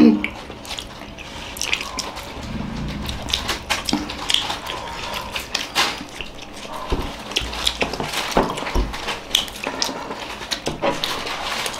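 People eating momos by hand with their mouths close to the microphone: irregular wet chewing and lip-smacking clicks, with a couple of dull thumps about seven and eight and a half seconds in.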